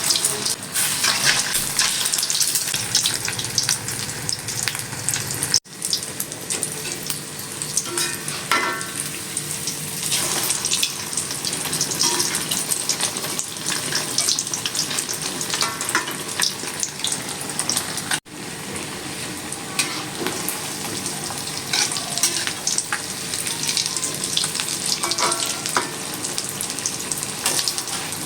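Food frying in hot oil in a pan: a steady sizzle with dense crackling throughout. The sound cuts out for an instant twice, about six and about eighteen seconds in.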